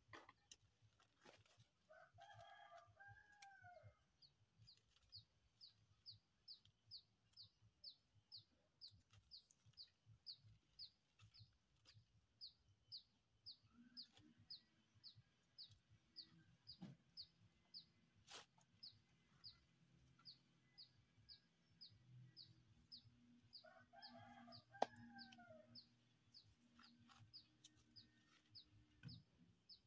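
Faint rooster crowing twice, about two seconds in and again near the end, over a steady run of short, high chirps at about two a second and a low hum in the second half.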